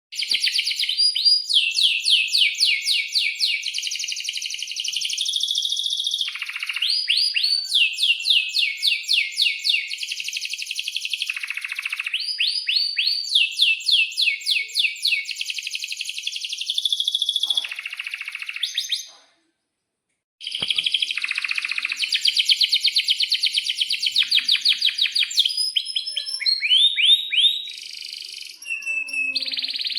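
Domestic canary singing: long, fast trills and rolls of rapidly repeated high notes, broken by a brief silence about two-thirds of the way through before the song starts again.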